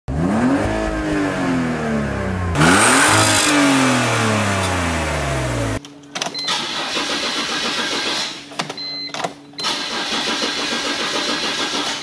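BMW E46 engine being revved twice, its pitch rising and falling each time. About six seconds in it cuts abruptly to a steadier sound with a thin high tone and regular clicks.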